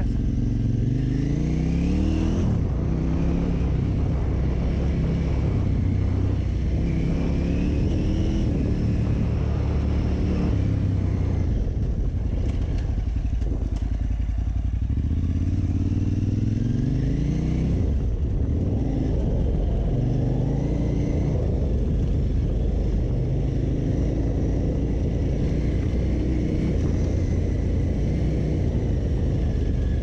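KTM 950 Super Enduro R's 942 cc V-twin engine under way. Its note climbs in pitch and drops back again and again as the rider accelerates, shifts and eases off. It sinks low for a moment about halfway through, then picks up again.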